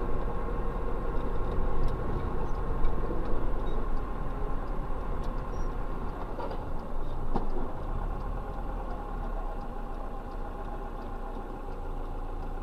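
Engine and road noise inside a moving car recorded by a dashcam, a steady hum that grows gradually quieter, with a couple of sharp knocks about six and a half and seven and a half seconds in.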